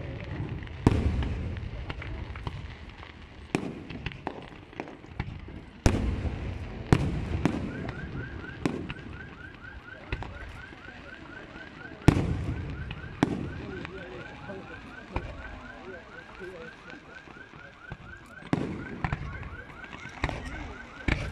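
Aerial fireworks shells bursting: sharp bangs every second or few, each followed by a low rumble, with a cluster of quick bangs near the end. From about a third of the way in, a high chirp repeats rapidly, several times a second, under the bangs.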